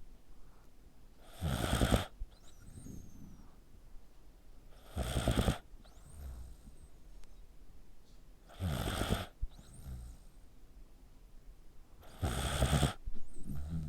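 A sleeping pet snoring like a person: four loud, rattling snores, about three and a half seconds apart, with quiet breathing between them.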